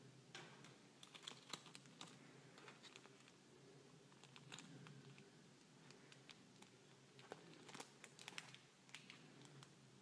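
Faint crinkling and scattered small clicks of a folded paper sticker sheet being unrolled and handled, in a cluster about a second in and another about eight seconds in.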